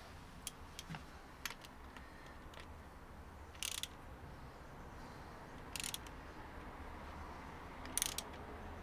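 Socket ratchet clicking as it turns a bolt on a motorcycle's front fork leg, in three short quick runs a couple of seconds apart, with a few single light clicks before them.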